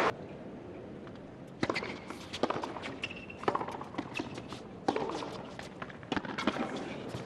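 Tennis rally on a hard court: sharp, separate racket strikes on the ball and ball bounces, coming a second or less apart.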